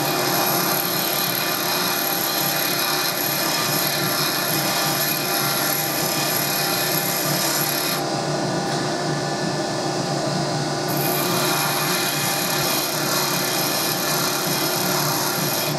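Bench grinder wheel grinding a high-speed steel lathe tool bit, a steady abrasive hiss and rasp of steel against the wheel. The high-pitched part of the hiss stops for about three seconds just past the middle, then resumes.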